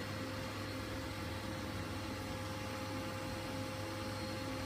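Steady low machinery hum with a faint constant whine and hiss over it, unchanging throughout: the background running noise of the cutting-room equipment.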